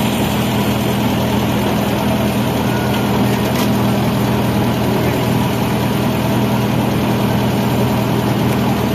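Motorboat engine running steadily, a constant low hum that does not change in pitch or level.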